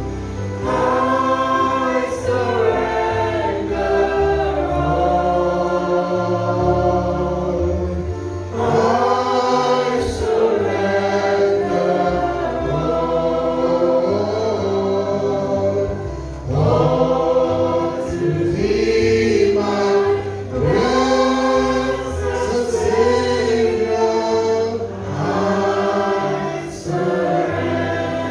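A choir singing a slow gospel hymn in harmony over sustained low accompaniment, in long phrases with short breaths between them.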